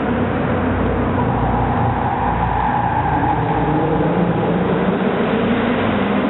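Car engine running hard as the Audi hatchback is driven around the cone course, its revs drifting up and down, echoing inside a large hall.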